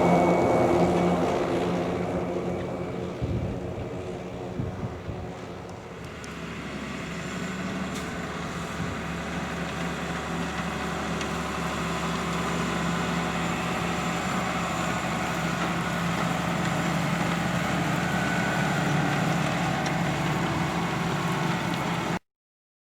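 Valtra tractor's engine running steadily while pulling a four-furrow Pottinger plough through the soil. It fades over the first few seconds as it moves away, grows louder again and holds, then cuts off suddenly near the end.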